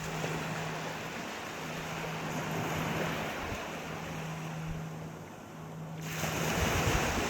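Sea waves washing and breaking on the shore, a steady wash of surf that swells and ebbs, with a louder wave surging in about six seconds in.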